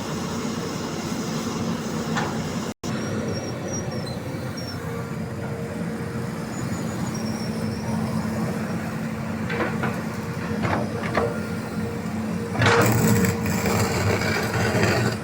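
Diesel engine of a Hitachi hydraulic excavator running steadily, with a louder burst of noise about two-thirds of a second long repeated near the end as the machine works.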